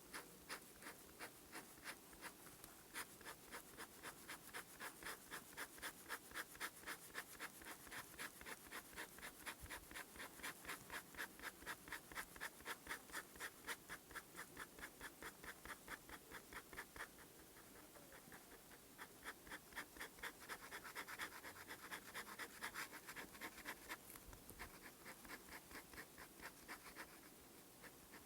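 Steel nib of a PenBBS 487 fountain pen scratching across paper in quick, even sketching strokes, about four a second, slowing for a few seconds past the middle.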